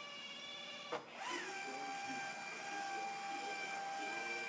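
Vendo Vue 40 beverage machine's delivery arm running under its drive motors on a test vend after a Y-motor replacement, giving a steady motor whine. About a second in there is a click, and the whine restarts with a short swoop in pitch before running steady again.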